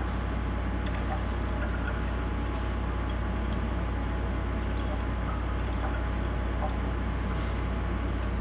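Tap water running steadily over a glass microscope slide into a stainless-steel sink, rinsing off Gram stain, over a constant low hum.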